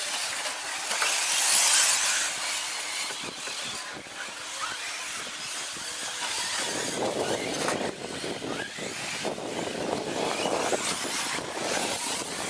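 Radio-controlled short course trucks racing on a dirt track: a continuous rushing noise of motors and tyres, loudest as a truck passes close about a second and a half in, then fuller and lower-pitched again from about halfway.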